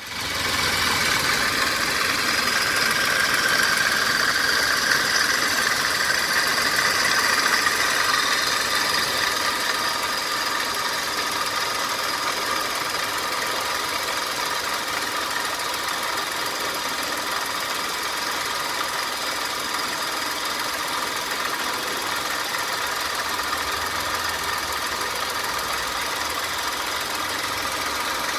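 Car engine idling with its ribbed serpentine belt and pulleys turning: a steady mechanical running noise with a faint high-pitched whine.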